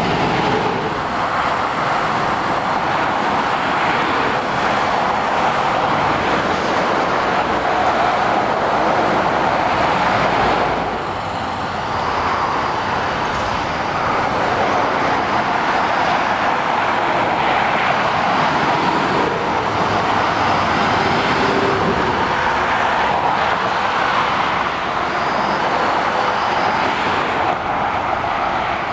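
Steady motorway traffic: the tyre noise and diesel engines of lorries and cars passing in a continuous stream, easing briefly about eleven seconds in.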